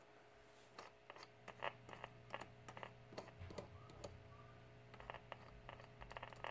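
Near silence: a low steady hum with faint, irregular clicks and crackles, from a powered-up 1951 Silvertone tube clock radio whose reception is weak and scratchy.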